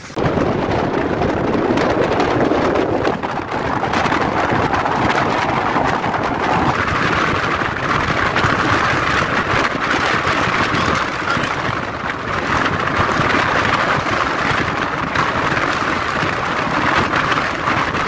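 Strong wind rushing across and buffeting the microphone, a loud continuous noise without pause, the same wind that is blowing a waterfall's water back upward as spray.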